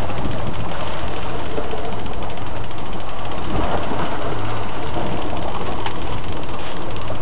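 Charter fishing boat's engine running steadily with a low, constant hum.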